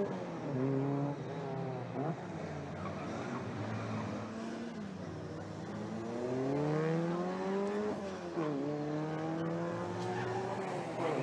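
Historic racing cars' engines at full throttle, pitch climbing as they accelerate and dropping briefly at gear changes, with one long rise and shift about three quarters of the way through.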